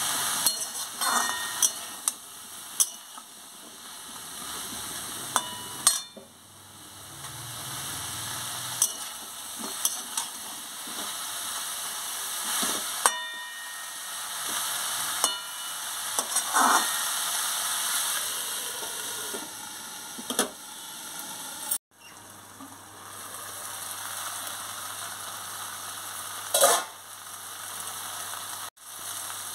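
Pumpkin, potato and chickpeas sizzling in hot oil in a metal wok-style pan, stirred with a metal spatula that scrapes and clinks against the pan again and again.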